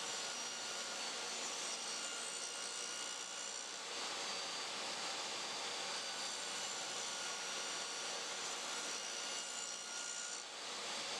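DeWalt table saw running steadily with a high motor whine while a mahogany piece is fed along the fence to rip its edge.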